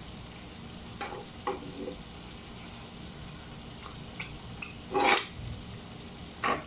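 Cooking utensils knocking and scraping against a pan in a few short clinks, the loudest about five seconds in, over a steady faint hiss.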